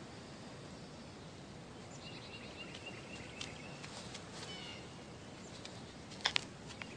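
Small birds chirping outdoors: short high notes in quick runs, with a falling call midway. Two sharp knocks sound close to the microphone near the end.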